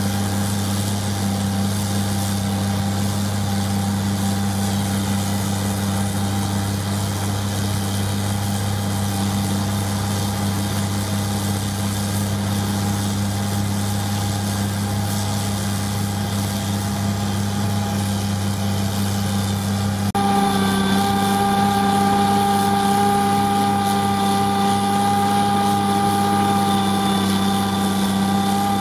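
Loader-mounted Contant snowblower running under load as it eats into a snowbank, a steady engine drone with the blower's hum. About two-thirds of the way through the sound shifts abruptly, a little louder, with a higher steady whine added.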